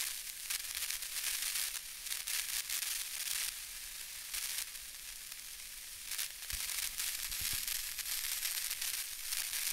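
Crackling, sizzling static sound effect of an animated channel intro, mostly high hiss with flickering surges. A few soft low thuds come about two-thirds of the way through.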